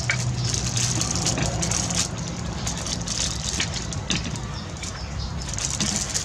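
Thin plastic bag crinkling in quick, irregular crackles as fingers handle and peel it open, over a steady low hum.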